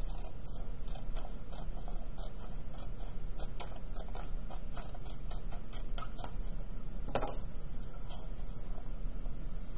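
Scissors cutting a sheet of paper in half: a run of small, irregular snips, with a louder rustle of the paper about seven seconds in.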